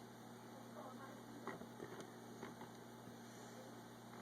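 Near silence: a steady low electrical hum with a few faint clicks.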